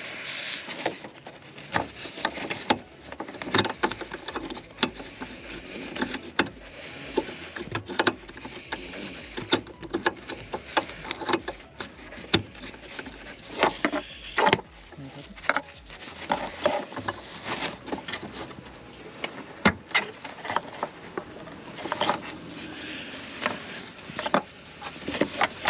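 Irregular plastic clicks, knocks and rubbing as a gloved hand works an LED bulb's plastic retaining bracket into the bulb socket at the back of a car headlight housing.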